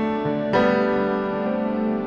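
Soft background music: sustained electric-piano chords, with a new chord struck about half a second in.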